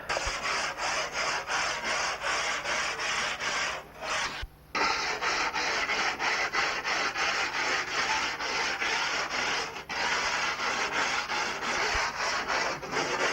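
Rapid rhythmic rubbing or scraping strokes, about three a second, with a short pause about four and a half seconds in.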